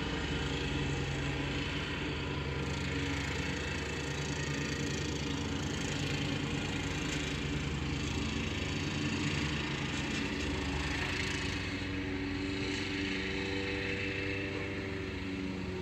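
A steady engine hum, as of an idle, holding several constant low tones under an even hiss, with no thunder clap.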